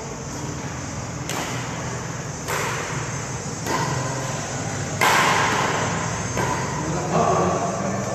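Badminton rally: rackets striking a shuttlecock about five times, roughly once every second and a bit, each sharp hit ringing on in the echo of a large sports hall.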